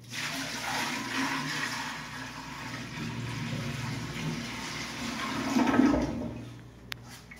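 Water poured from a bucket into a newly mounted flushometer toilet bowl and rushing down its drain, a test of the wax ring seal for leaks. It starts abruptly, swells near the end and dies away about six and a half seconds in.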